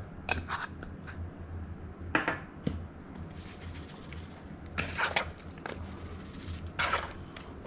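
Spice jars of black pepper and then adobo seasoning shaken over raw fish fillets in a bowl: about five short rattling shakes, spaced out, over a low steady hum.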